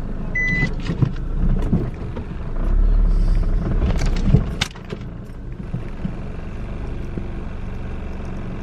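Car engine idling while the car backs up, with a short high reversing beep near the start. A low rumble swells about three seconds in, and a couple of sharp clicks follow around four seconds in.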